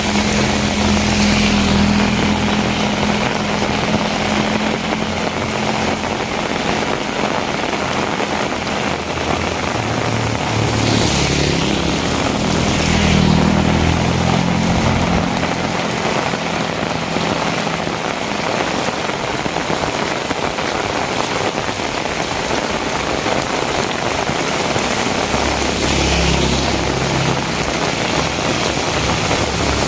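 Heavy rain falling steadily, with the low hum of a motor vehicle engine coming and going: strongest near the start, around the middle and near the end.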